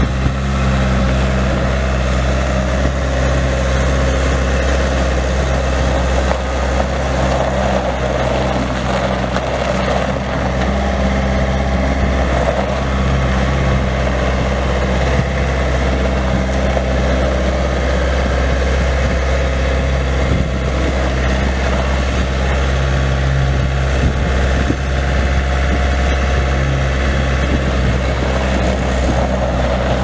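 Diesel engine of a Bobcat S175 skid steer, a Kubota four-cylinder, running steadily at an even speed.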